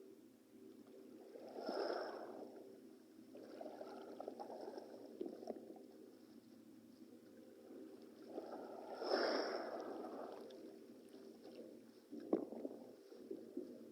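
Cold sea water splashing and washing in swells every few seconds, with a sharper splash about twelve seconds in.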